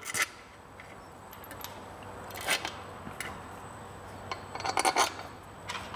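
Small metal clinks and taps of the Vespa's belt-cover screws being handled and started by hand into the cover: a few scattered clicks, then a quick run of them about five seconds in.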